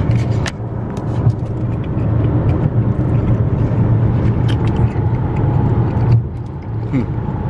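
Steady low road and engine rumble inside a moving Dodge Charger's cabin, with scattered short crackles from a sandwich's paper wrapper being handled.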